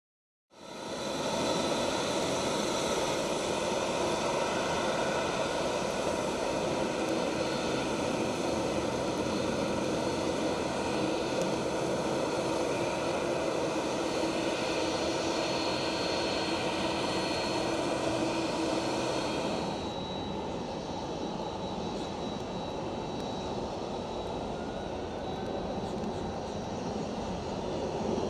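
Boeing 747-8 freighter's four GEnx turbofan engines, close by, with a steady whine of several high tones over a broad rush. About two-thirds through, the sound changes abruptly to a duller rumble with less whine: the jet on its takeoff roll down the wet runway.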